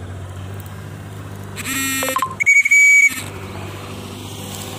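A short call in a person's voice, then a loud, steady high whistle of under a second, the kind used to call a loose cockatiel back, over a low steady hum.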